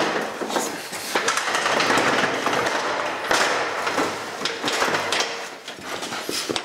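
Wooden plank and aluminium scaffold tower knocking and clattering as they are handled, a busy run of short knocks and scrapes.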